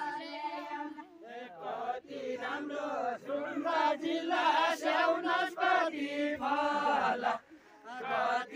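A group of men and women singing a Deuda folk song together, unaccompanied and chant-like, in long held phrases. There is a brief pause between lines near the end.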